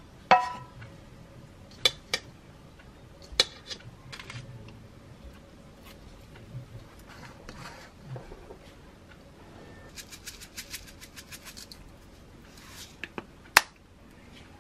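Kitchen handling sounds as jjajang tteokbokki is scraped out of a frying pan into a melamine bowl: a ringing clink, then scattered sharp knocks and clicks of cookware and dishes, a quick run of light clicks partway through, and one louder sharp knock near the end.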